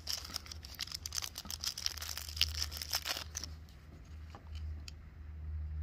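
Thin clear plastic bag crinkling as a small camera battery is pulled out of it, a run of quick crackles that stops about three and a half seconds in.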